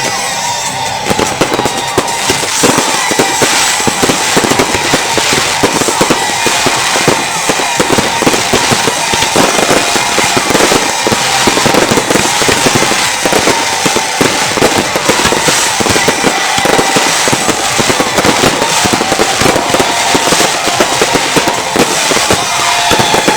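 New Year's Eve fireworks going off without a break: a dense, rapid string of firecracker bangs and crackling rocket and battery shots.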